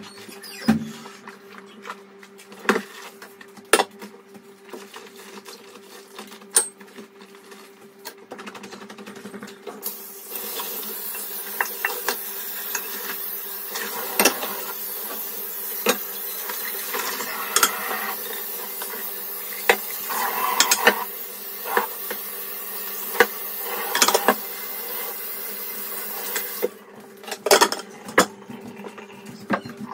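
Dishes, pots and utensils clinking and knocking as they are washed at a kitchen sink. From about ten seconds in until near the end, a steady rush of tap water runs under the clatter, then stops abruptly.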